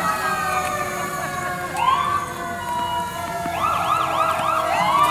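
Sirens sounding, more than one overlapping: a long wail slowly falling in pitch, then from about two seconds in, quick repeated rising-and-falling yelps.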